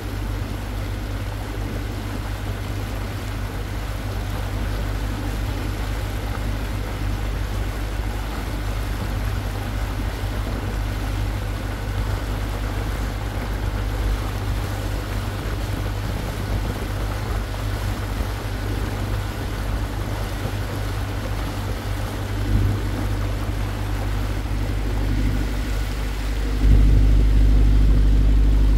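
Water taxi's engine running steadily while under way, heard from on board as a low hum with the wash of water along the hull. It gets louder about two seconds before the end.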